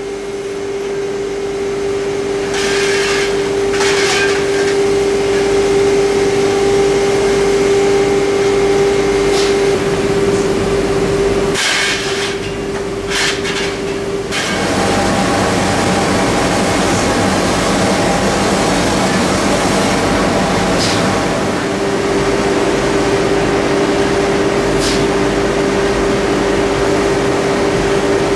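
Steady drone of a powder-coating line's machinery and overhead shovel conveyor, a constant hum with a few sharp metallic clinks. The hum's pitch changes about halfway through.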